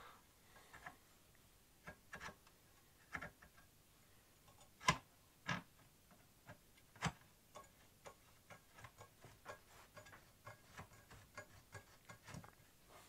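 Faint, irregular clicks and knocks of small machine parts and hand tools being handled during hand assembly, as a jammed part is worked into place. The two loudest knocks come about five and seven seconds in, followed by a run of quicker, lighter ticks.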